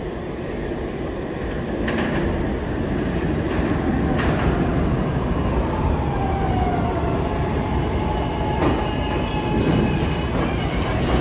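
SEPTA Market-Frankford Line subway train of M-4 cars pulling into an underground station, its rumble growing louder. Wheels click over rail joints a few times, a whine falls in pitch as it slows, and a high steady squeal sets in near the end as it nears a stop.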